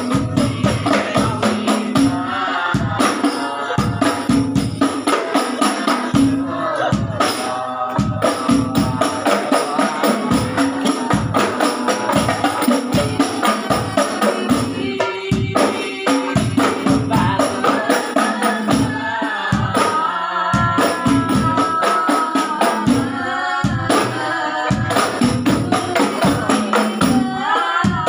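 Hadrah ensemble of rebana frame drums and bass drums playing a steady, fast interlocking rhythm, with voices singing a sholawat over it.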